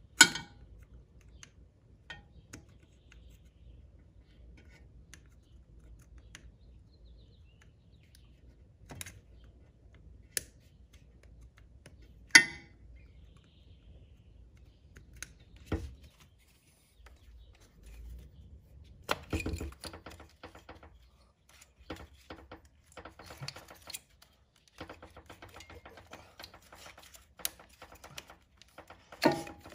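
Scattered sharp plastic clicks and knocks as ignition-coil wiring connectors are unlatched and the coils are worked loose in an engine bay, with a run of rapid ticking over the last few seconds.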